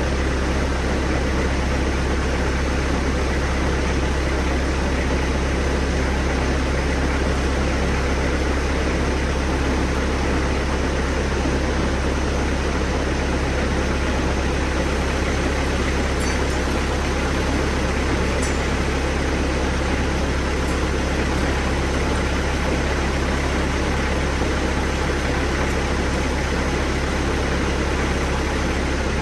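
1999 Bobcat 763 skid steer's diesel engine idling steadily.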